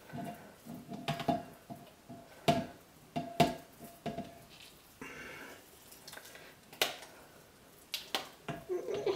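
A utensil knocking and scraping against a container while solid butters are put into melted soap-making oils. The knocks are sharp and irregular, some with a brief ring; they are thickest in the first few seconds, ease off in the middle and pick up again near the end.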